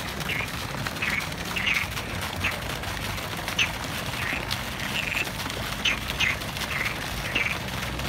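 Frogs croaking in a pond: short calls coming irregularly, about one or two a second.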